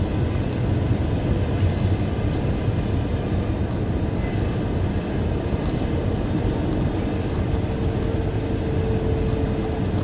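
Airbus A320 cabin noise heard from a seat over the wing on approach: steady rumble and rush of the jet engines and the airflow past the fuselage. A faint steady hum joins about six seconds in.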